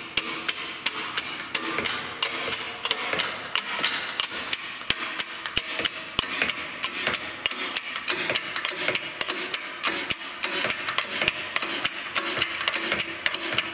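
Steady run of sharp metallic taps, about three to four a second, like hammering on metal in a shop.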